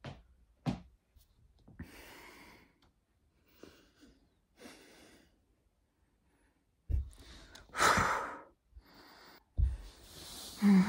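A person breathing hard through a short bout of exercise: loud, irregular breaths and sighs, with two low thumps about seven and nine and a half seconds in and a short voiced groan near the end.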